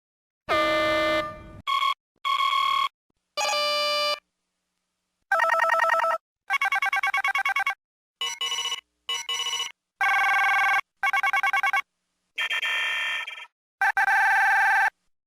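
A run of Star Trek: The Next Generation sound effects: about a dozen short electronic computer beeps, chirps and trilling warbles, each under about a second and a half, separated by brief silences.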